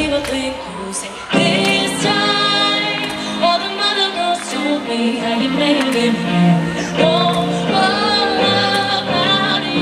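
A female pop vocal group singing live, with several voices over the music accompaniment. The music jumps louder about a second in.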